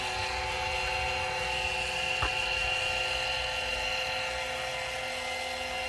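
Small 12-volt Ultimate Speed oil extractor pump running steadily, sucking engine oil up through the dipstick tube. Its even tone is the sign that it is picking up oil well. A faint click about two seconds in.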